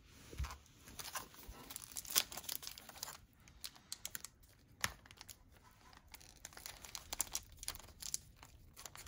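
Fingers picking and crinkling at the glued top of a 1990 NFL Pro Set trading-card pack wrapper, with scattered faint crackles and small tearing sounds as the old, tightly stuck seal resists ripping.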